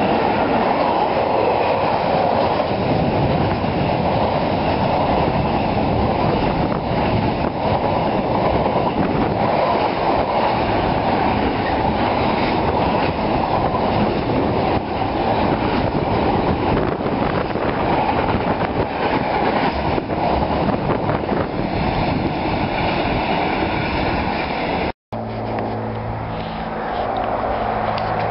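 Container freight train passing close by at speed, its wagons rumbling and clattering on the track in a steady loud roar. About 25 seconds in the sound cuts off abruptly, and a steadier, quieter hum with low tones follows.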